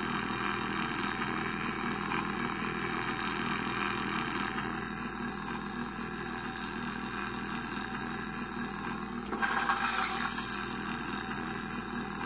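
Lightsaber sound font played by a Proffieboard through the saber's 28 mm bass speaker: a steady electric hum. About nine and a half seconds in, a louder rushing burst lasts about a second.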